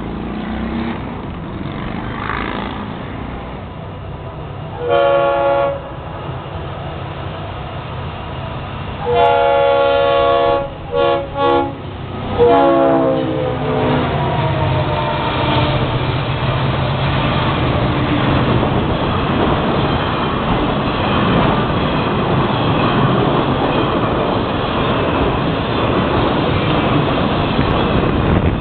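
A Florida East Coast freight locomotive's multi-chime air horn sounds for the crossing: one blast about five seconds in, then a long blast, two short ones and a longer one from about nine seconds in. The locomotives and freight cars then rumble and clatter steadily past.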